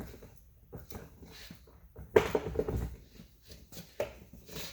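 Plastic mirror housing parts being handled and fitted: scattered clicks and knocks, with a louder cluster of rattling knocks about two seconds in.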